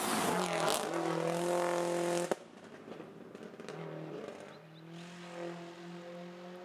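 Rally car engine revving hard under acceleration, its pitch rising, cut off abruptly about two seconds in. Then another rally car's engine, quieter and farther off, approaching with its revs climbing slowly.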